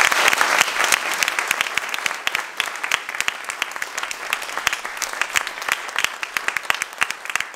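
Audience applauding, loud and dense at first, then thinning out to scattered individual claps as it dies down.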